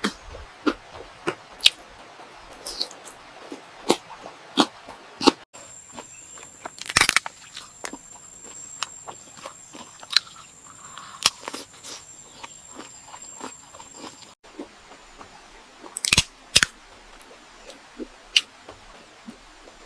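Close-miked eating sounds: irregular sharp crunches and chewing from crunchy food. The sound changes abruptly twice, about five seconds and fourteen seconds in.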